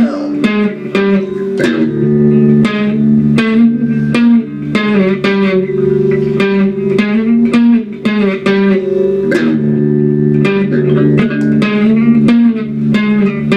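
Ibanez electric guitar playing an instrumental passage of a rock song: quick picked notes and strummed chords over held low notes, with no singing.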